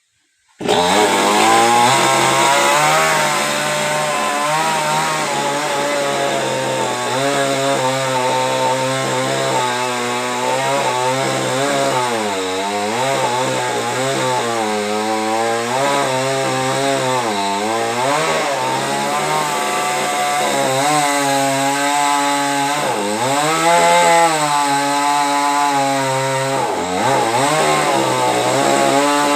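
Chainsaw cutting a coconut tree, starting suddenly about half a second in. Its engine pitch keeps dipping and rising as the chain bogs under load and frees up again.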